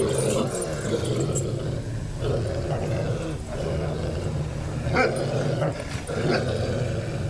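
Pit bull growling steadily with a deep, rough growl while gripping and tugging in a bite-and-pull exercise.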